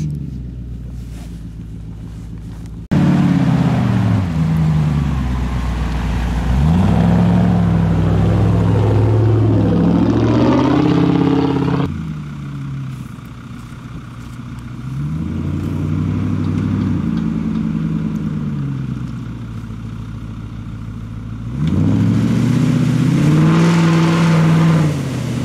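Land Rover Discovery's tuned-camshaft V8 engine revving hard in repeated surges, its pitch rising and falling as it drives through deep mud, with the tyres churning and throwing mud.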